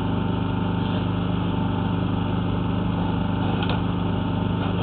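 An engine running steadily at idle: a constant drone with a fast, even pulse.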